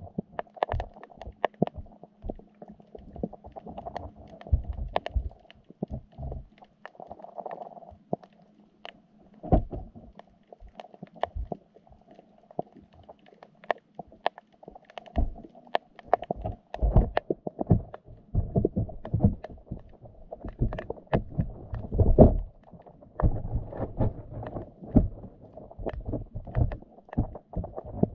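Muffled underwater sound picked up by a GoPro in its waterproof housing inside a wire fish trap: irregular low thumps and many sharp clicks and knocks over a steady murky hum. The thumps grow heavier in the second half, the loudest a little past the middle.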